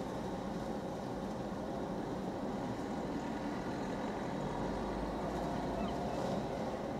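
Christ automatic rollover car wash running, a steady muffled mechanical rumble of its motors, brushes and water spray, heard from inside a parked car.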